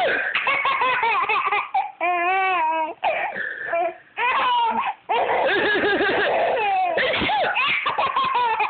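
A baby laughing hard in long, nearly unbroken runs of belly laughs and giggles, with a drawn-out high squeal about two seconds in.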